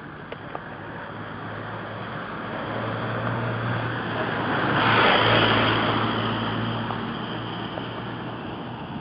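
A motor vehicle drives past, its engine and tyre noise swelling to a peak about halfway through and then fading. A steady low engine hum runs underneath and dips slightly in pitch as the vehicle goes by.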